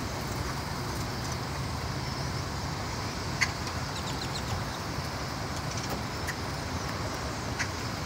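Steady traffic noise from a busy highway, with a few short, sharp calls from a large flock of birds flying over and perching nearby.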